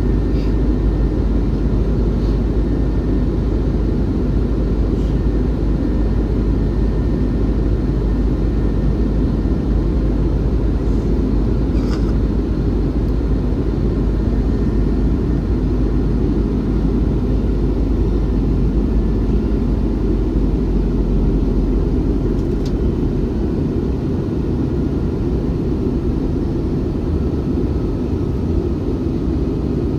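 Steady cabin roar inside an Airbus A321-211 airliner in flight: airflow and CFM56 turbofan engine noise heard from a window seat, deep and even, with a couple of faint clicks. The deepest part of the rumble eases slightly near the end.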